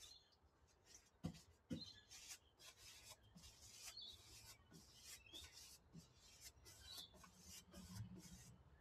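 Faint, quick paintbrush strokes scraping and swishing over the bare metal floor panel of a Toyota Hilux cab, about two to three strokes a second.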